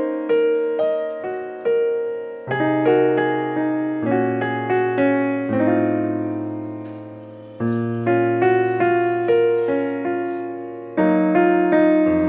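Background piano music: a gentle melody of struck notes that each fade away, with lower bass notes joining about two and a half seconds in.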